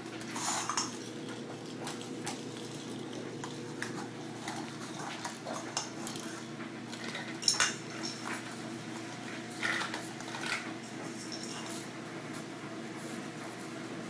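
Scattered light clicks, knocks and clinks of bullmastiff puppies playing with plastic toys on a tile floor, over a steady low hum. The loudest knocks come about halfway through and again about two-thirds of the way in.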